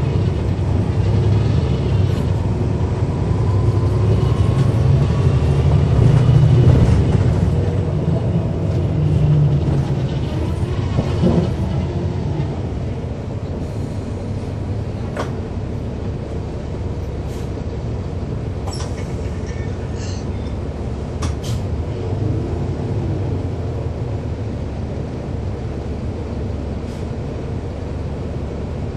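The 8.9-litre inline-six Cummins ISL9 diesel of a NABI 40-SFW transit bus running loud under load for about the first ten seconds. It then eases to a steadier, lower drone, with a few sharp clicks in the middle.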